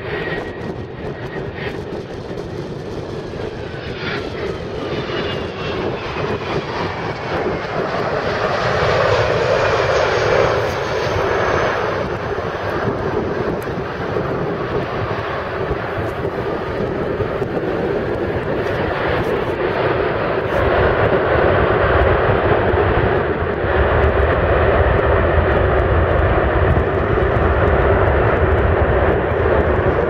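A Boeing 767-300's jet engines running on landing. The engine whine falls in pitch over a broad roar as the airliner passes low over the runway, and it grows louder near the middle. A heavier low rumble builds late on as the jet rolls out after touchdown on the wet runway.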